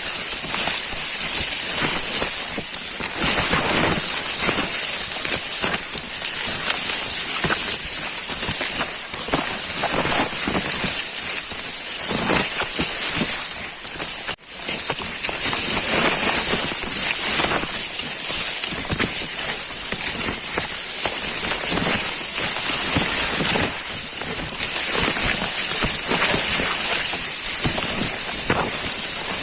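Hand-pumped backpack sprayer applying a drench to sugarcane: liquid spraying with a steady high hiss and a dense, rain-like spatter on leaves and soil, broken by a brief drop-out a little before halfway.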